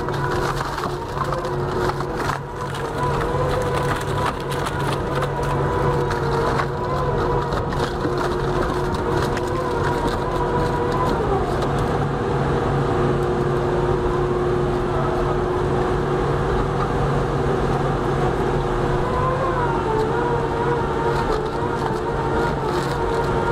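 Wood shredder's spiked rotor chewing into a log: wood cracking and splintering over a steady, droning machine drive. The cracks come thickest in the first several seconds, then the drone carries on with fewer breaks.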